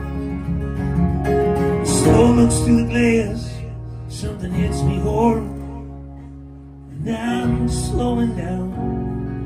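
Live acoustic band music: a bowed fiddle carrying a wavering melody over strummed acoustic guitar. It thins out for a moment about two-thirds of the way in, then comes back in full.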